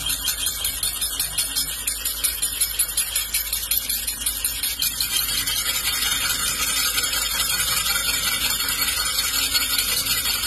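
Sand poured by hand onto a steel sheet: a dense, steady crackling hiss of falling grains, with a faint low hum underneath.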